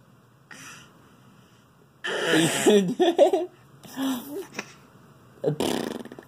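A baby's breathy squeals and giggly sounds in short bursts, the longest and loudest about two seconds in, as she tries to blow a raspberry and doesn't quite manage the lip buzz.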